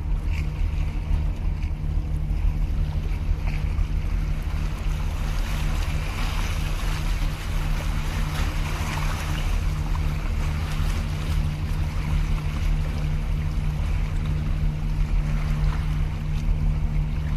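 A boat's engine droning steadily at one unchanging pitch, with water washing against the breakwater's concrete blocks, the wash a little louder in the middle.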